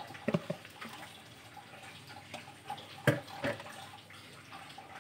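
Wet, raw fish pieces tipped from a plastic bowl into a cooking pot and shifted into place by hand: wet slaps and a few knocks, the loudest about three seconds in.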